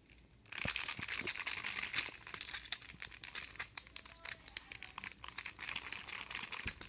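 Scratchy rustling and crinkling of a small plastic toy brush being rubbed through a plush toy dog's fluffy fur, starting about half a second in.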